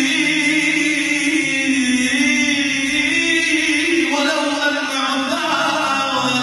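Men's voices chanting dhikr unaccompanied, in long held melodic notes that glide slowly in pitch.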